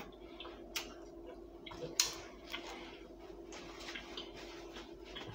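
Chewing and scattered soft mouth clicks from eating a croissant sandwich, with a paper napkin rustling around two seconds in, over a faint steady hum.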